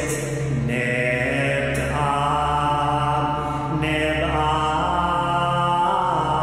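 A man's voice chanting slowly in ancient Egyptian, holding long sung notes with hissing consonants between them, over a steady low drone.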